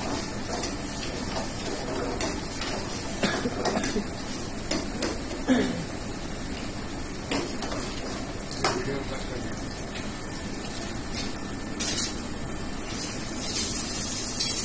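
A metal ladle scraping and clinking against a pan on a gas range while stirring, with a handful of sharp knocks over a steady background rush. Water runs near the end.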